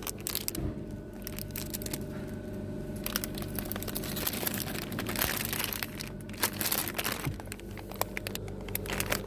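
Plastic packaging being handled, crinkling and crackling irregularly, over a steady low hum.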